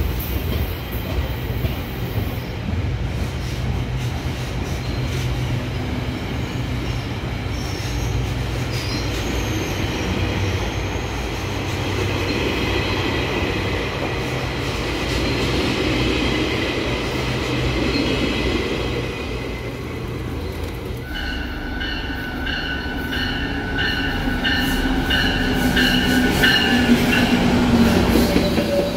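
GO Transit bilevel passenger coaches rolling past a platform with a steady low rumble. About two-thirds of the way through, the sound cuts to another GO train passing, with a high squeal from its wheels that flickers on and off and grows louder near the end.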